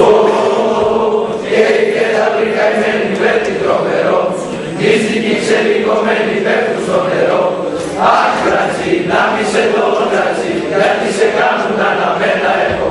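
A choir of teenage boys singing together, male voices holding long phrases with short breaks between them every few seconds.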